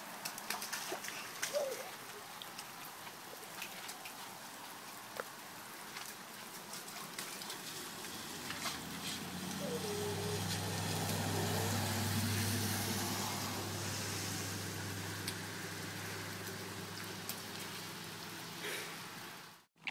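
A small child's feet splashing and scuffing through shallow muddy puddles, in scattered short splashes. Partway through, a low steady engine hum of a passing vehicle swells for several seconds and fades out.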